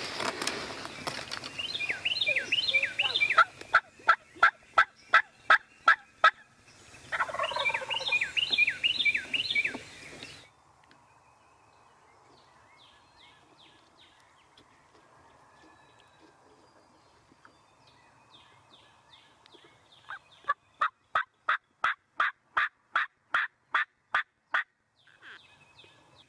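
Wild turkey calls: bursts of rapid falling notes like gobbling, and two runs of about a dozen evenly spaced loud yelps at about three a second, the second run after a long quiet stretch.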